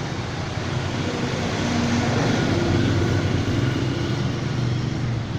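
Steady low rumble of nearby vehicle traffic, with faint engine tones rising out of it about two seconds in.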